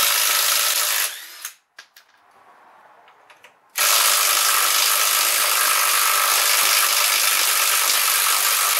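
Cordless impact wrench hammering on a front wheel's lug nuts. One run of hammering cuts off about a second in, and after a short quiet gap with a few faint clicks a second, longer run starts about four seconds in and keeps going.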